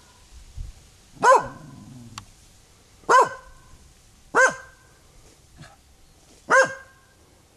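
A dog barking territorially at a person, four loud single barks spaced about one and a half to two seconds apart, with a couple of fainter sounds between them.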